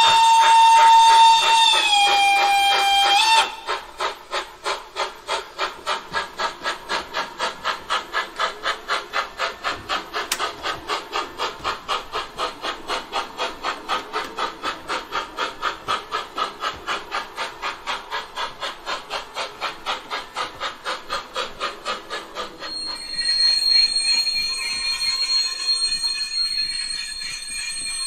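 Sound decoder of a Gauge 1 model of a Prussian T3 steam tank locomotive, playing through the model's speaker. A steam whistle sounds for about three seconds and drops in pitch partway through. Then comes a long, even steam-exhaust chuffing rhythm as the locomotive runs, and about 23 seconds in the chuffing stops and a steady high tone with hiss follows.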